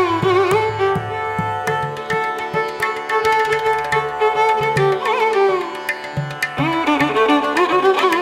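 Instrumental background music: a gliding string melody over a steady drum beat.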